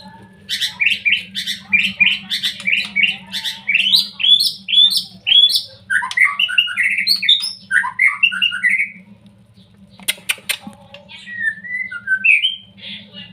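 Young white-rumped shama giving a rapid run of short, harsh calls, about three a second, that turn into more varied chattering notes before breaking off; a few clicks and some scattered notes follow near the end. A steady low hum runs underneath.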